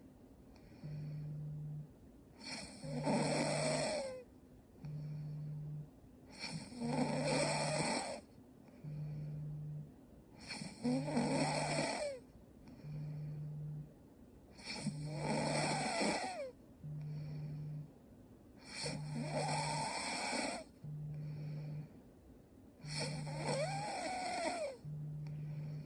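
A sleeping young woman snoring in a steady rhythm: a loud snore about every four seconds, six in all. A short, low, steady hum comes every two seconds between and under them.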